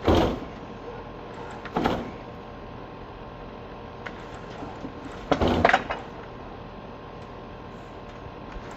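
Three short bangs over a steady mechanical hum: one at the very start, one about two seconds in, and a longer rattling one a little past five seconds.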